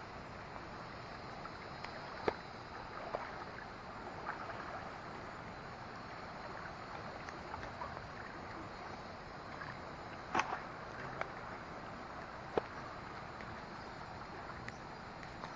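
Steady rush of river water, with a few sharp clicks or knocks standing out, the loudest about two seconds in, near ten seconds and near thirteen seconds.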